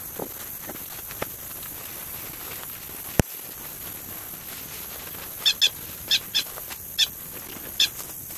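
A bird gives six short, harsh calls, some in quick pairs, in the second half. A single sharp click comes a little past three seconds in.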